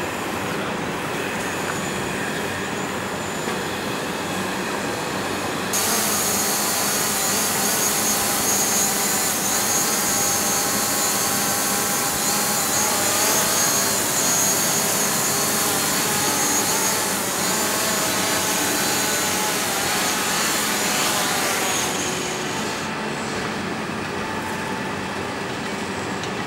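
DJI Mavic quadcopter's propellers buzzing with a high whine whose pitch wavers as the drone hovers and manoeuvres. About six seconds in the sound turns abruptly louder and brighter, and it drops back near the end.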